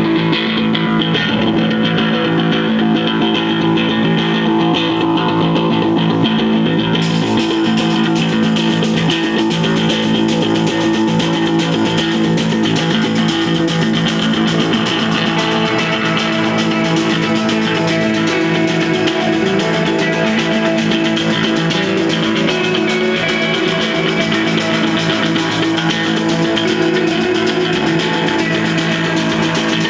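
Instrumental desert rock played live by a band, with electric guitar and bass guitar ringing out over a steady, dense sound. The top end brightens sharply about seven seconds in.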